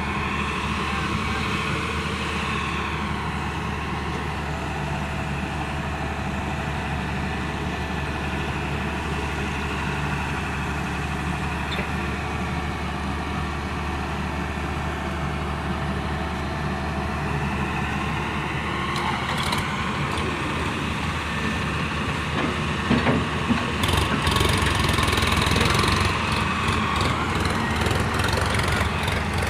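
Heavy diesel engine running steadily. Past the middle it gets louder, with a few short knocks.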